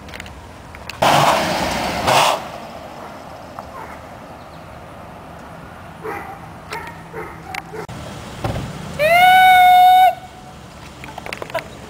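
A man yells one long, high-pitched "duuuude" about nine seconds in, the loudest sound. Earlier, about a second in, a loud rushing noise runs for about a second, with quieter low vehicle rumble and small knocks in between.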